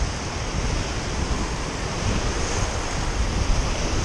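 Breaking surf washing in over a rocky shore: a steady rush of foaming water, with gusts of wind rumbling on the microphone.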